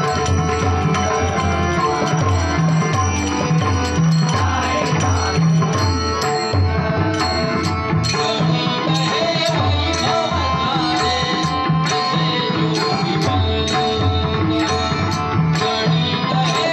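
Marathi bhajan music in a slow tempo: harmonium tones over a steady beat of tabla and pakhawaj, with small hand cymbals (tal) striking more strongly from about six seconds in.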